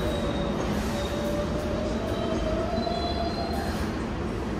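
R188 subway train moving through the station: a steady rumble with a thin whine that rises slightly in pitch.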